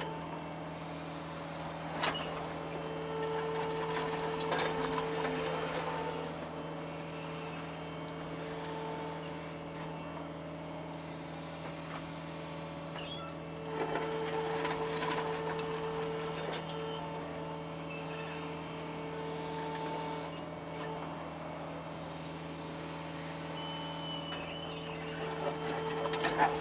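John Deere 75 excavator's diesel engine running steadily while digging, with a higher hydraulic whine that swells for a few seconds at a time as the machine is worked. A few knocks, the loudest near the end.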